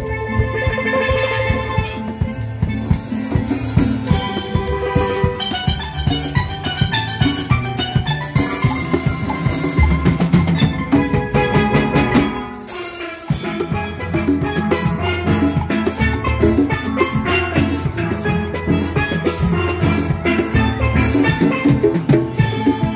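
A live steel pan band: several chromed steel pans struck with mallets, playing a rhythmic tune over a drum kit and congas. About twelve seconds in, the band drops back briefly, then the full band comes back in.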